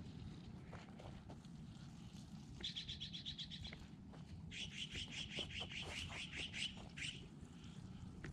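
A songbird singing two rapid trills of quickly repeated high notes, a short one about two and a half seconds in and a longer one from about four and a half to seven seconds, over a low steady outdoor rumble.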